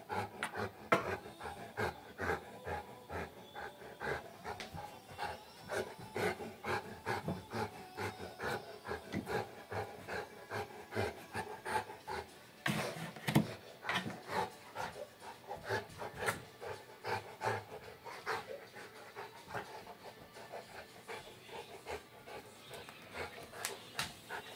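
Saint Bernard panting in quick, uneven breaths, several a second, with a few louder breaths about a third and halfway through.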